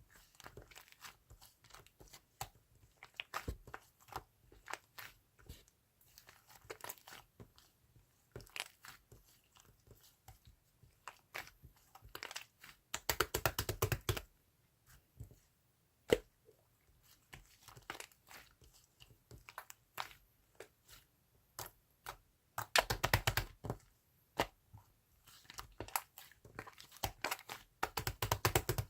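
Slime being played with: a run of small sticky clicks and pops, with three louder bursts of fast crackling, about halfway through, around three-quarters through and near the end.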